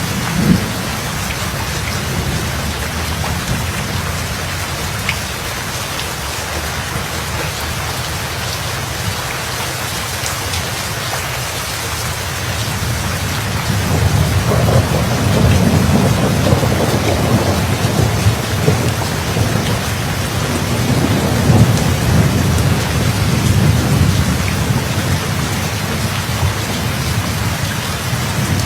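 Steady heavy rain falling, with a brief low thunder thump about half a second in and a long rolling rumble of thunder rising about halfway through and continuing to the end.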